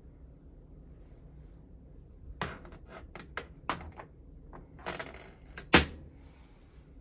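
Polished steel gearbox gears clinking against each other and the metal bench as they are handled and set down. There are about nine sharp clicks, starting a little over two seconds in, and the loudest comes near the end.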